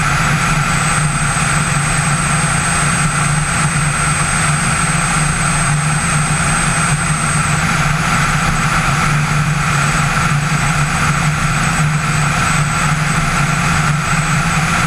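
Subaru-powered Quickie Q2's engine and propeller running steadily in cruise flight, heard from a camera mounted outside on the airframe, with rushing airflow over it. The engine note holds steady, with no change in power.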